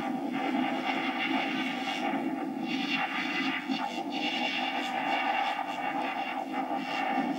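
Replica Ghostbusters proton pack's sound-effects module playing its powered-up idle hum: a steady electronic drone with a higher whine above it.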